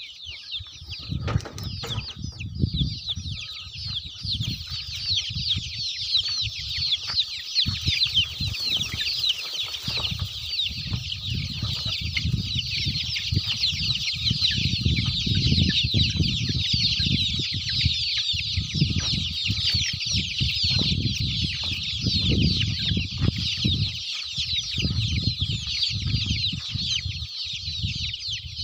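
A large flock of young native chickens peeping without a break, a dense chorus of many short, high, falling calls. Low rumbles come and go underneath.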